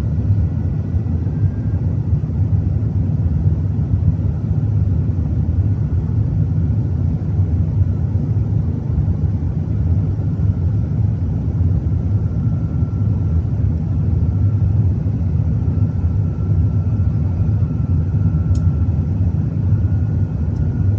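Steady low rumble of a Singapore Airlines Airbus A380's Rolls-Royce Trent 900 jet engines during the takeoff climb, with a faint high whine running through it.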